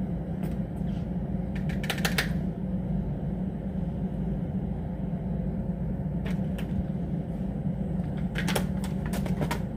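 Sharp clicks and taps in short clusters from a handheld makeup palette being handled and tapped, over a steady low room hum.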